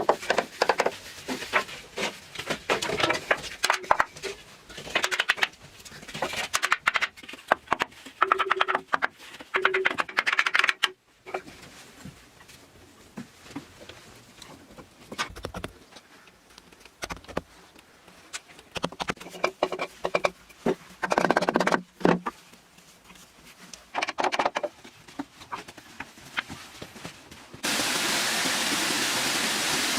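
Rapid, irregular knocks, taps and scrapes, sometimes dense and sometimes sparse. About two seconds before the end they give way abruptly to a steady rushing hiss like rain or running water.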